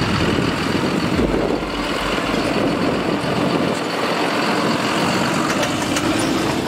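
Claas Arion 640 tractor's six-cylinder diesel running steadily under load as it drives close past, pulling a Horsch Agrom Cruiser 5XL cultivator through stubble. Its deep rumble eases a little past the middle.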